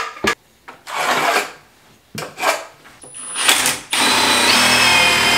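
Cordless drill driving a long 3-inch screw through a wooden ledger into the wall. A few short bursts of noise come first, then a steady whining run starts about four seconds in and steps up in pitch shortly after.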